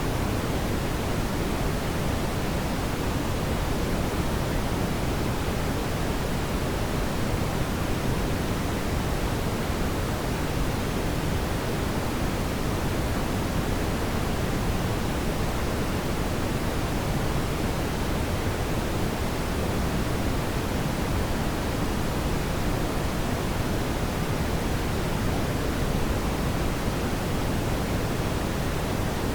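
Steady brown noise: a smooth, deep hiss with most of its weight in the low end, unchanging throughout.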